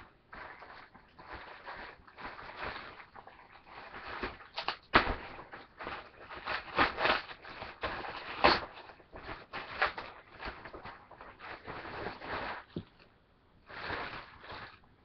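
A backpack being pulled out of its packaging bag: irregular rustling and handling noise with knocks and bumps, the sharpest about five seconds in and again about eight and a half seconds in.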